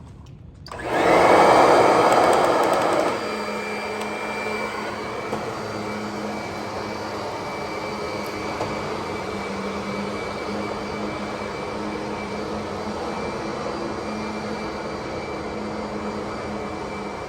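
Kirby Sentria 2 upright vacuum cleaner switched on about a second in, loudest for the first two seconds, then running steadily with a constant hum.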